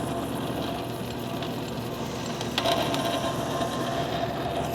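South Bend 9-inch Model A bench lathe running steadily under its motor drive, its gear train and quick-change gearbox turning over at reduced speed. A sharp click about two and a half seconds in, after which it runs a little louder.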